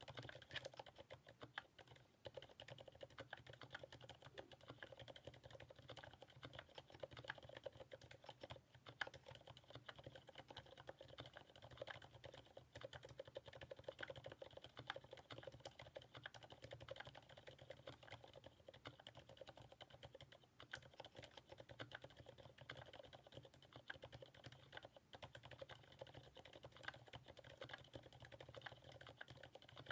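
Continuous typing on a TX Keyboard HJ75 mechanical keyboard with lubed Cherry MX Silent Black switches and GMK keycaps: a fast, steady stream of faint, soft keystrokes.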